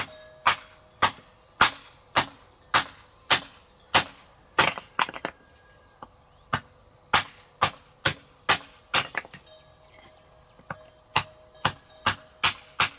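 Repeated sharp chopping strikes of a blade into wood or plant stalk, about two a second, with a pause of a second or so past the middle.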